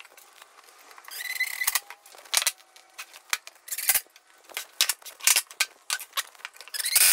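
Cordless drill driving pocket-hole screws into a melamine drawer box: a short run of the motor about a second in and another near the end, each stopped as soon as the screw bites so the panel is not pushed out of line. Clicks and knocks of handling the drill and drawer fall in between.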